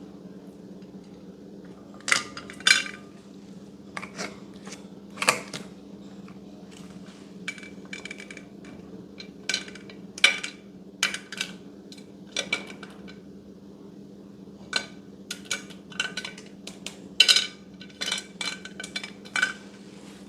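Slime play: about twenty sharp, irregular clicks and clinks, like a tool or container tapping, spread unevenly through the stretch, over a steady low hum.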